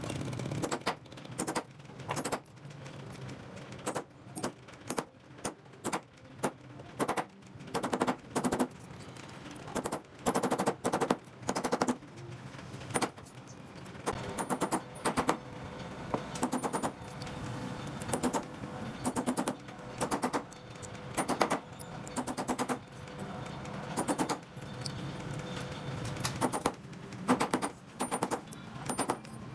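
Quick runs of sharp metallic taps and clicks from a goldsmith's hand tools working gold at the bench, several strikes at a time with short irregular pauses between the runs.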